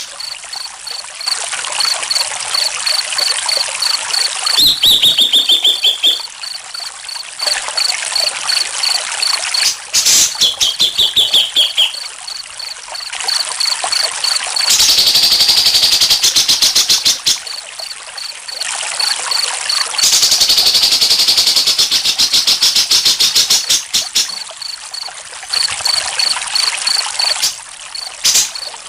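Trickling water mixed with crickets chirping in a steady, regular pulse, with two short falling whistles, about five seconds apart, early on the track.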